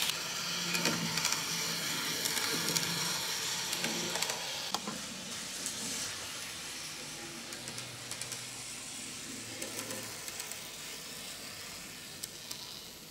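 Kato N gauge Type 8620 model steam locomotive running on the track while being run in new: a steady whirring hiss of its small motor and wheels with a few light clicks, slowly getting quieter.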